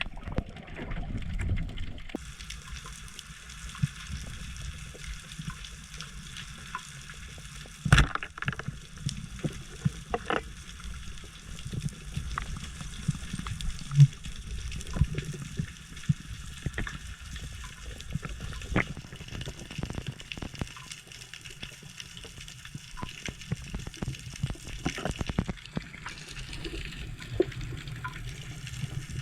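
Water sounds from a spearfishing dive: a steady hiss full of small crackling clicks. There is a sharp knock about eight seconds in and a short low thump near fourteen seconds.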